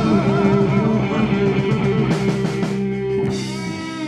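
Live rock band playing: electric guitar and bass over a drum kit, with crashing cymbals about two seconds in and again just after three seconds. The music fades away near the end.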